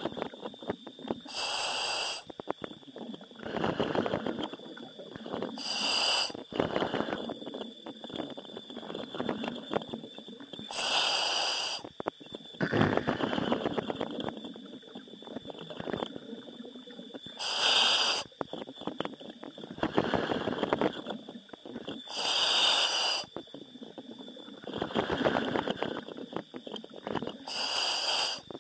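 A diver's breathing through a diving helmet's demand regulator, heard over the diver communication line: a hissing inhalation about every five seconds, six in all, alternating with rougher, lower exhalations that bubble out. A steady high tone from the comms line runs underneath.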